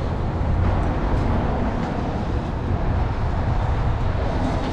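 Steady low rumbling background noise outdoors, even throughout with no distinct events.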